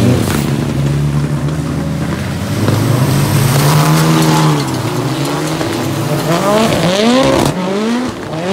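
Rallycross Supercar engines revving hard as cars race past on a muddy track, the engine note rising and falling through gear changes. In the second half there is a run of quick climbing revs, and near the end the sound changes suddenly.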